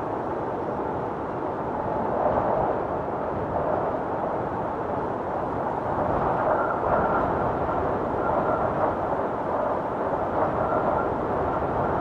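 Blizzard wind blowing hard and steadily, a dense rushing noise, with a faint high howl that comes and goes in the second half.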